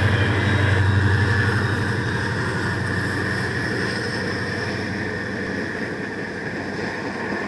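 A passing train: a diesel locomotive's low engine rumble with rail and wheel noise, loudest at first and slowly fading.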